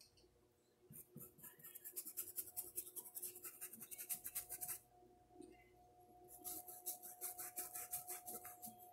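Faint, quick scratchy strokes of a paintbrush laying paint onto a porcelain cup, several strokes a second, in two runs with a short pause between them.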